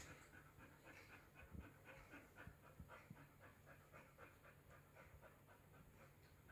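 Kuvasz puppy panting faintly in a quick, even rhythm, about four breaths a second, fading out near the end.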